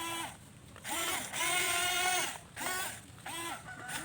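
A string of about five held, pitched vocal calls. Each is steady in pitch and lasts under a second, with short gaps between them.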